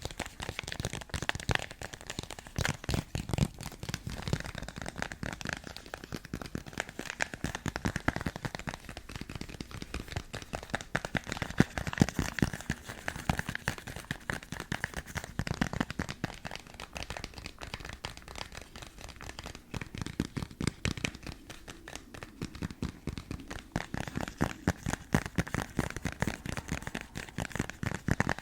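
Fast, dense ASMR tapping on an object: many quick, crisp taps in an uneven rhythm.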